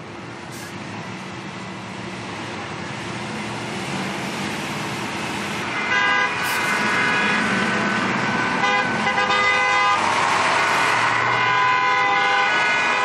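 Convoy of KAMAZ trucks on the move: engine and road noise growing louder, then from about six seconds several truck horns sounding together and held.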